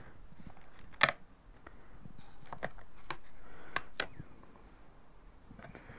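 Tape being handled and pressed onto a cardboard mock-up, with the cardboard rustling. A sharp tap about a second in is the loudest sound, and two more clicks come near the end of the rustling.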